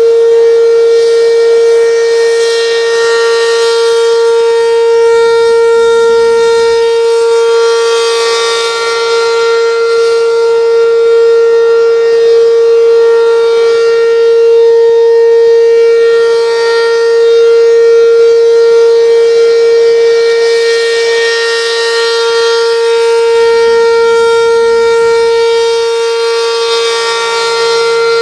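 Restored Werden civil defense siren running at full speed, holding one loud, steady tone with evenly spaced overtones. Its loudness swells and fades gently as it sounds.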